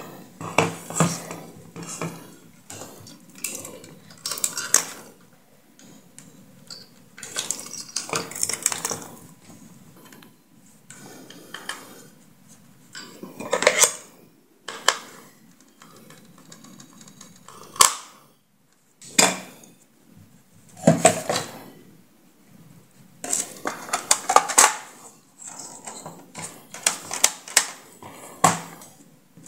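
Hard plastic parts of a scooter's instrument cluster being handled and fitted together: irregular clatter, knocks and clicks, with a few sharper knocks in the middle.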